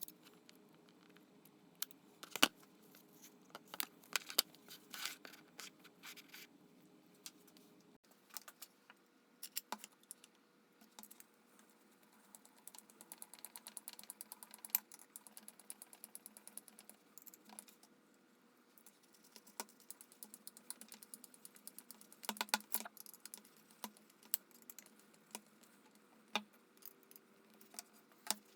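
Light, irregular clicks and taps of small hand work at a bench, with a quick run of rapid ticking about halfway through.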